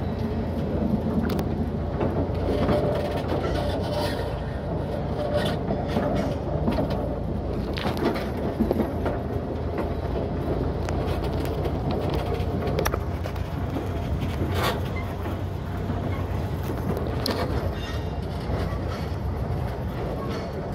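Narrow-gauge forest railway train running, heard from the locomotive cab: a steady low rumble with scattered sharp clicks and knocks of the wheels over the rail joints and points.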